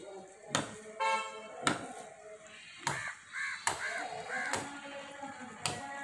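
Crows cawing in alarm at a disturbed nest, a run of four or five short caws near the middle, over sharp knocks about once a second.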